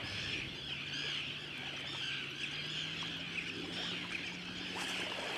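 Many seabirds calling at once, a continuous chatter of overlapping high chirps, as a flock works a feeding blitz of striped bass on sand eels.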